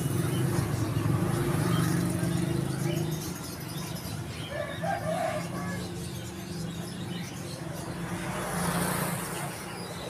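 A motor vehicle engine running steadily in a busy market lane, louder for the first few seconds and then fading, with a short bird call about halfway through.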